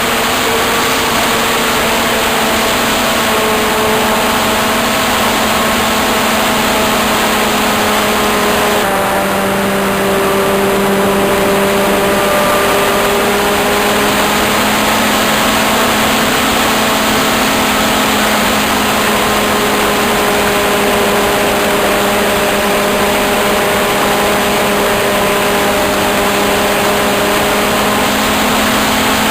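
Model airplane's motor running steadily in flight, heard from an onboard camera with heavy rushing air noise over it. About nine seconds in, the pitch drops a step as the throttle eases, then holds steady.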